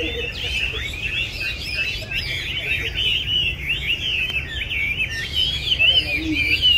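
Caged Chinese hwamei (họa mi) singing: a continuous, fast run of varied whistled phrases that switch pitch rapidly.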